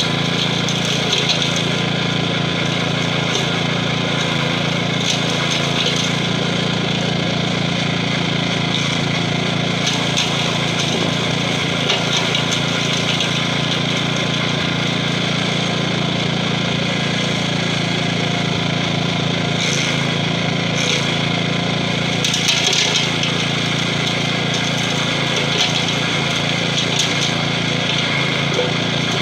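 Gravely 5640 walk-behind tractor's 12 hp Kohler engine running steadily under load while its stump-grinder attachment cuts into a tree stump, the cutter grinding through wood. A few brief louder bursts of grinding come in the second half.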